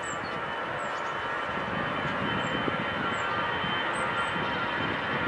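Airbus A320's jet engines at takeoff thrust during the takeoff roll: a steady roar with a thin high whine in it, growing slowly louder as the airliner speeds up along the runway.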